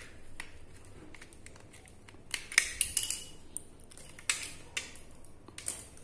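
Hand-tool handling: scattered clicks and light metallic clinks of a screwdriver working the terminal screws of a plastic 15 A socket, with a quick cluster of clicks about halfway through.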